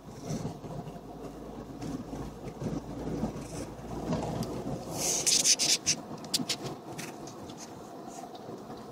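Trolleybus running in the street: a low rumble with a faint steady whine. A run of sharp clicks and crackles comes about five seconds in, with a few more scattered after.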